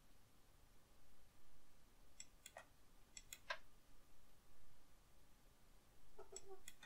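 Faint computer mouse clicks in three short clusters, about two seconds in, about three and a half seconds in, and near the end, over quiet room tone.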